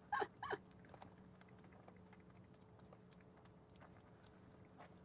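French bulldog puppy licking whipped cream from a small cup: faint, irregular wet tongue clicks. A person's voice sounds briefly at the start.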